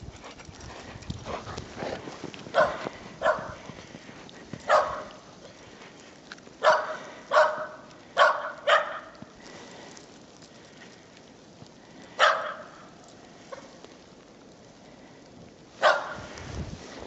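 A dog barking in short single barks, about nine in all, with a quick run of four in the middle.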